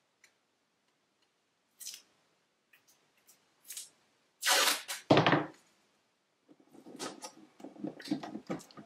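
Masking tape being pulled off its roll with a loud rip about halfway through and torn off, then a run of small crackles and taps as the tape strip is pressed down around a hollow resin shell.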